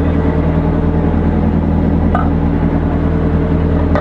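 Fishing boat's engine running steadily, a low, even drone, with a light knock about two seconds in.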